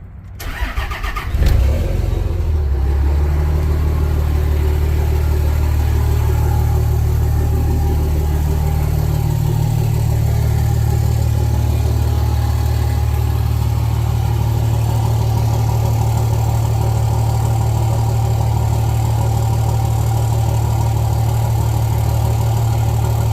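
Cummins 5.9 inline-six turbo diesel cranking and catching about a second and a half in, then idling steadily through a 5-inch downpipe and a turned-down exhaust exit ahead of the axle; the exhaust note is maybe a little deeper with this setup.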